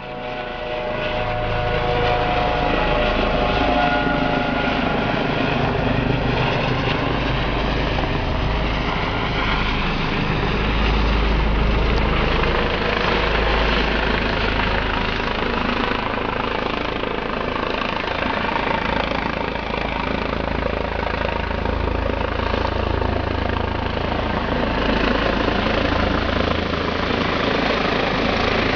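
Rescue helicopter's rotor and turbine running steadily, with a deep rumble and a few steady whining tones in the first few seconds.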